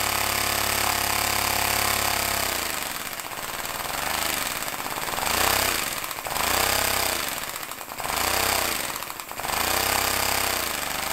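Compressed air engine running fast and steady. About two and a half seconds in, its speed starts dropping and picking up again, about five times, as the throttle valve piston is pushed down and let go, bringing it near idle.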